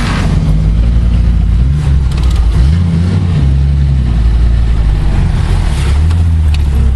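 A motor vehicle engine running loud, its revs rising and falling several times. A few sharp clicks come near the end.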